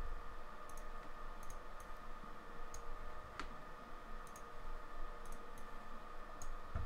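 A handful of scattered computer mouse clicks, one louder about three and a half seconds in, over a faint steady electrical hum.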